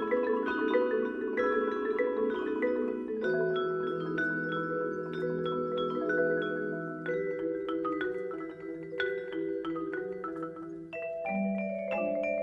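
Youth percussion ensemble playing mallet instruments: a busy texture of quick struck notes from marimbas and xylophones, with ringing, sustained tones underneath.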